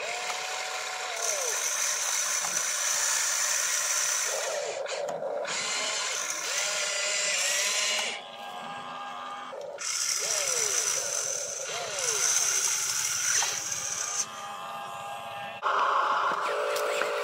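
Small geared electric motors of a radio-controlled excavator whining in spells as the arm and boom move. The whine breaks off twice and rises and falls in pitch as the motors speed up and slow down.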